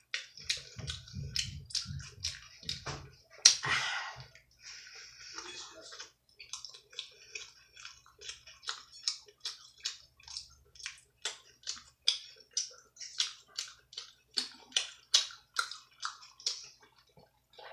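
Close-miked wet, open-mouthed chewing of pizza: a steady run of smacking clicks, about two to three a second, with one louder smack about three and a half seconds in.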